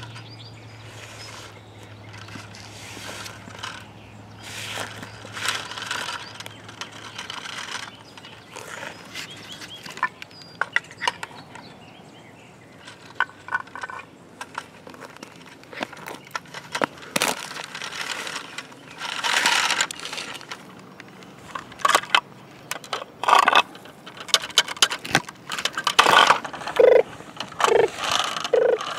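Plastic toy trucks rolling and being pushed over rough pebbly concrete: irregular scraping and gritty crunching of the wheels, with plastic clicks and knocks from the toys and small bins being handled. It grows louder and busier in the second half as a toy MAN skip-loader is pushed close by.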